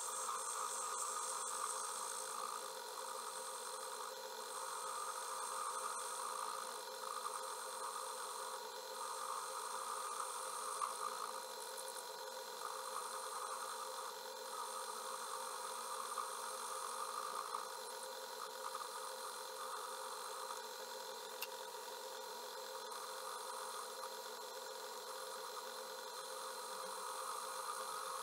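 Atlas metal lathe running with a steady hum, while a hissing cutting noise comes and goes every second or two as the tool cuts a taper into an aluminum pen nib.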